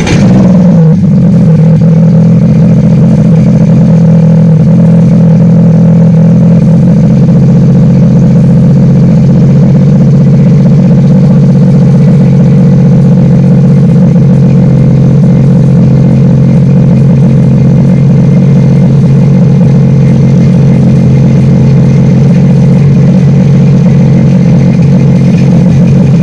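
2018 Sea-Doo GTR-X 230's supercharged three-cylinder engine, just started, settling within about a second into a steady idle through a Riva free-flow exhaust, running out of the water on a flush hose.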